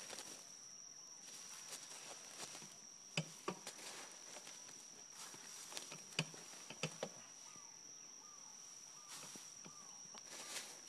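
A steady high-pitched insect trill, with hens scratching and pecking in dirt and dry leaves: soft rustling and a few sharp clicks, the loudest a little after three seconds and about six seconds in.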